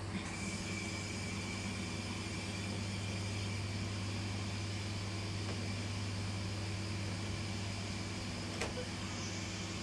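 Steady low machine hum with an even hiss and a thin high whine, broken once by a short soft click about eight and a half seconds in.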